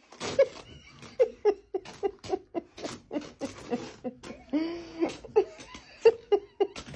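A person laughing in a run of short, quick bursts, a few a second, with one longer drawn-out laugh about four and a half seconds in.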